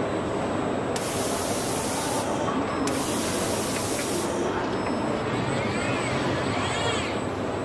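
Nakanishi E4000 motor spindle running at high speed on a Fanuc robot arm while its deburring tool works a drilled cross hole, with two loud bursts of hiss about a second and three seconds in. Near the end the robot's servo motors whine, rising and falling in pitch as the arm swings the spindle away.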